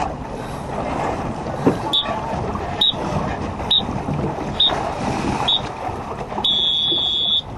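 An electronic beeper sounds five short, high beeps about once a second, then one long beep: the pattern of a race-start countdown. Wind and water noise from the boats runs underneath.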